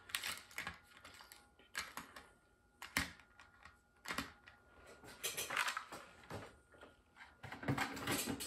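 Scattered light clicks and rattles, roughly one every second or so, of metal rivets being picked through in a small clear plastic parts box and the box being handled on the bench.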